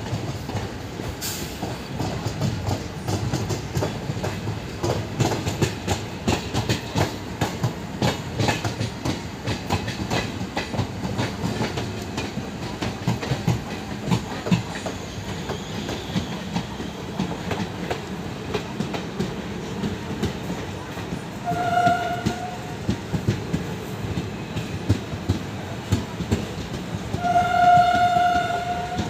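Passenger train running at speed, its wheels clattering steadily over rail joints. A short single-note train horn blast sounds about 22 seconds in, and a longer, louder one of about two seconds near the end.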